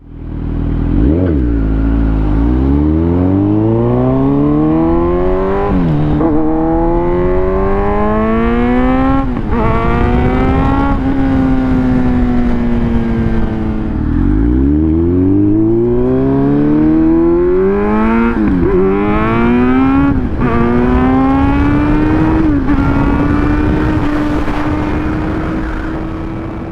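Kawasaki Z900 inline-four with a full Black Widow header and MIVV MK3 silencer, accelerating hard through the gears twice. Its pitch climbs and drops sharply at each upshift, then it holds a steady speed near the end.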